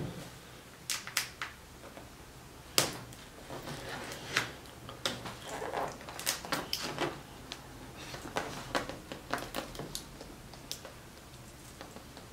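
A blade cutting packing tape on a cardboard mailer box and the cardboard being handled: irregular sharp taps and scrapes with rustling between them, the sharpest tap about three seconds in.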